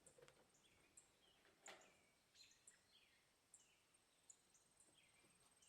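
Near silence, with faint scattered bird chirps. A faint steady high tone comes in about four seconds in.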